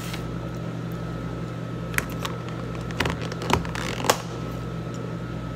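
Plastic lids being pressed and snapped onto plastic food-storage containers: several sharp clicks from about two seconds in to a little after four seconds, over a steady background hum.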